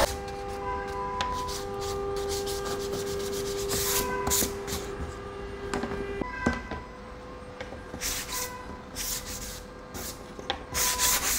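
Hand sanding thin wooden jig pieces with a sanding block: rasping rubbing strokes in short groups, with a faint steady hum that stops about six seconds in.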